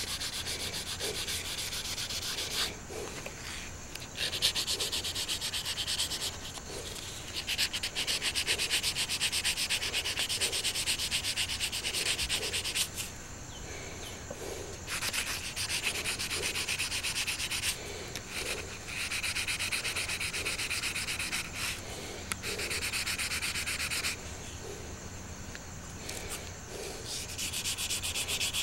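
Sandpaper rubbed back and forth by hand along the steel blade of a Schrade SC503 pocket knife, taking off corrosion. It goes in long spells of steady scratching, broken by a few short pauses.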